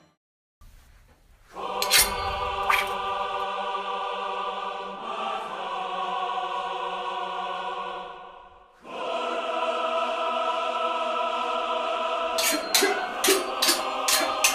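Music: a held, choir-like chord that fades out about eight seconds in and comes straight back. Near the end, a quick run of sharp knocks, about three or four a second, joins it.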